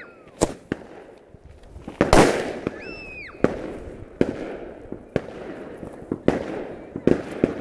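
Fireworks going off in quick, irregular succession: about a dozen sharp bangs, the loudest one about two seconds in.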